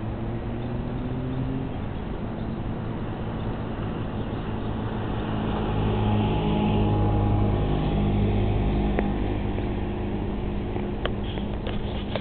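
Diesel locomotive engine running out of sight with a steady low hum. It grows louder about halfway through, then eases back.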